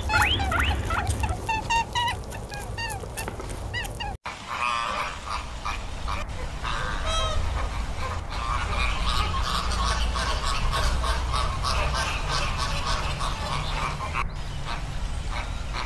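Quick high chirps for about four seconds, then a sudden brief drop-out, then a flock of flamingos calling, many short honks overlapping.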